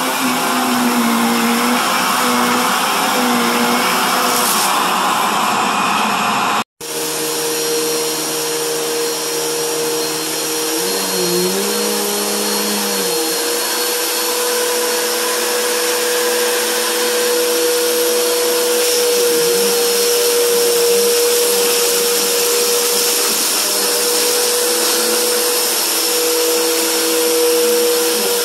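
Upright vacuum cleaner running steadily over a carpet runner, sucking up fine powdery dirt; its motor pitch sags briefly a few times. The sound cuts out for a split second about seven seconds in.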